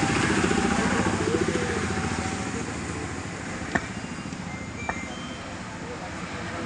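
A motor engine running with a rapid, even pulse. It is loudest for the first two seconds and then eases off. Two sharp clicks sound near the middle.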